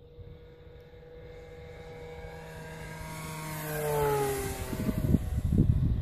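Electric RC model Pilatus PC-9 making a pass: the whine of its Turnigy G110 brushless motor and three-blade 16x10 propeller grows louder as it approaches, then drops in pitch as it goes by about four seconds in. Low rumbling follows near the end and is the loudest part.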